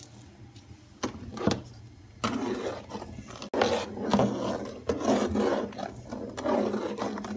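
Metal spatula stirring grated carrots, rice and milk in a large aluminium pot, scraping along the pot and knocking against its sides in an irregular rhythm, starting about a second in.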